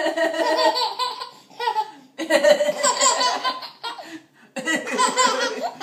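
A baby laughing hard in three long bouts, set off by its mother's coughing.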